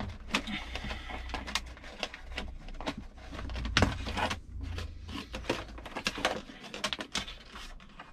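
Irregular clicks, taps and rustling of hands handling car wiring and plastic connectors, with one sharper knock about four seconds in, over a low hum that fades out about halfway through.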